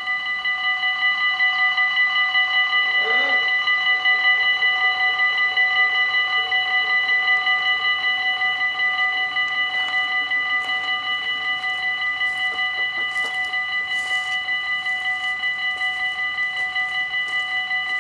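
Dutch level-crossing warning bells ringing in a fast, steady, even rhythm of about four strokes a second, warning of an approaching train while the crossing's barriers come down.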